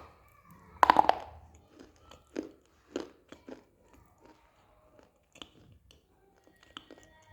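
Person biting and chewing dry multani mitti (Fuller's earth clay) close to the microphone: a loud crunchy bite about a second in, then irregular crunches as it is chewed, growing fainter.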